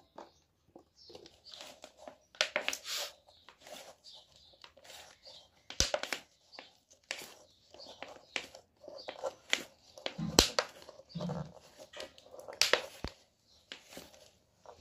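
Hands packing spiced radish pickle pieces into a plastic jar and pressing them down: irregular rustles and crinkles of the thin plastic, with sharp knocks of fingers and pieces against the jar. The loudest knocks come about six, ten and twelve and a half seconds in.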